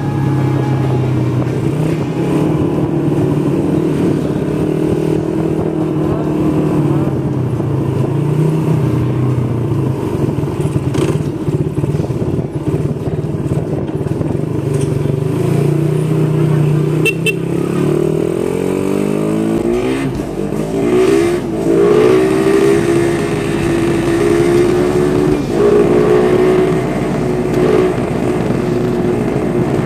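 Motorcycle engine running at riding speed with wind noise on the microphone; about two-thirds of the way through, the engine note drops and climbs again as the bike slows and speeds back up.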